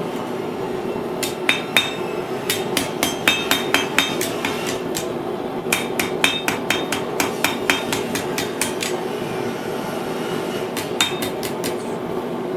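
Blacksmith's hammer striking hot steel on an anvil in quick runs of blows, about three a second, each with a bright ringing note, forging a spoon shape; short pauses between the runs. A steady hum runs underneath.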